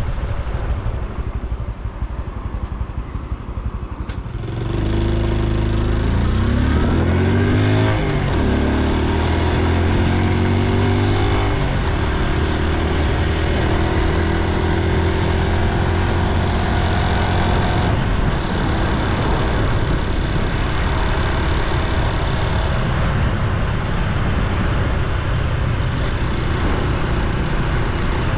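Honda Super Cub C125's single-cylinder four-stroke engine, quiet for the first few seconds, then pulling away and revving up through the gears with a gear change partway. After that it runs steadily at cruising speed, with wind rumble on the microphone.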